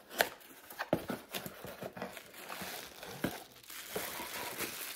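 Small cardboard box being opened, with a few sharp clicks and knocks in the first second or so, then clear plastic wrapping crinkling and rustling as it is handled.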